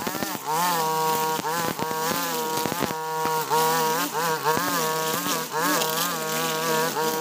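Husqvarna 542RBS backpack brush cutter's two-stroke engine running at high revs while cutting grass, its whine dipping and rising again and again.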